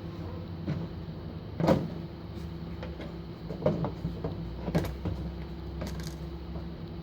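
A car's front bumper cover being unfastened and handled off: a few knocks and clunks, the loudest about two seconds in, over a steady low hum.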